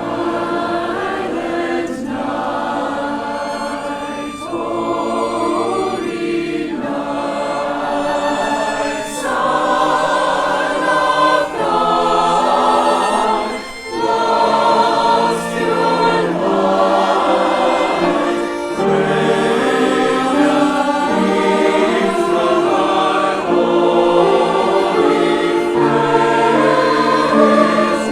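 Church choir singing in sustained phrases, accompanied by the church orchestra.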